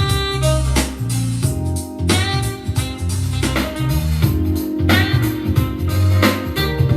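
Music played through a Bluetooth speaker: a bass-heavy track with plucked guitar-like notes and drums.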